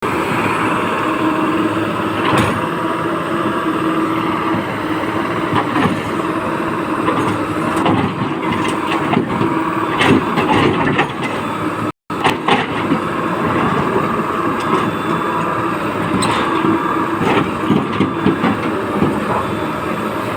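Excavator engine running steadily, with occasional sharp knocks and clanks.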